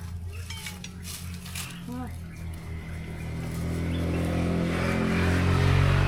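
A motor vehicle's engine running on the road, growing steadily louder over the last couple of seconds as it comes closer. A brief pitched call is heard about two seconds in.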